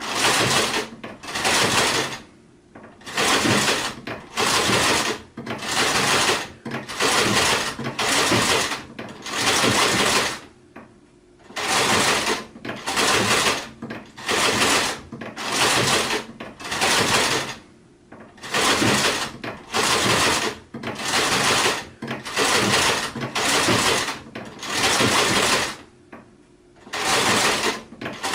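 Sewing machine stitching in short bursts of about a second each, stopping and starting again and again, with a few longer pauses between runs.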